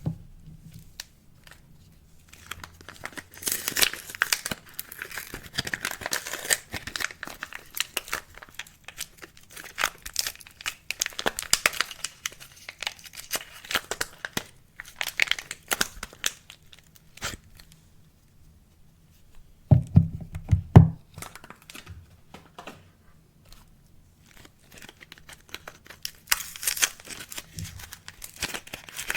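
Soap wrappers being torn open and crinkled by hand, in repeated crackly bursts. About two-thirds of the way through come two loud, heavy thuds, then more crinkling near the end.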